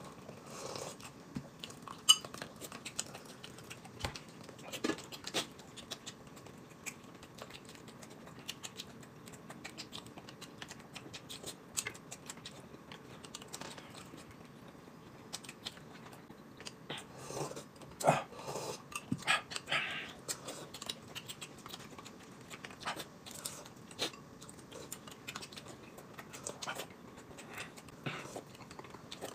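Two people eating at a table: spoons clinking against glass cups, chewing and sipping. Small clicks are scattered throughout, with a cluster of louder clinks about 18 seconds in.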